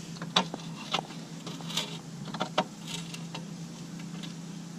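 Light metallic clicks and taps, a handful spread irregularly, from a hand wrench and bolts being worked at a car's license plate, over a steady low hum.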